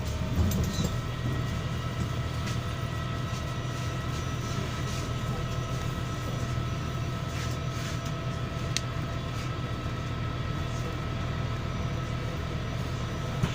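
MAZ-103.075 city bus heard from inside while driving: steady low engine and road rumble with a faint steady whine over it.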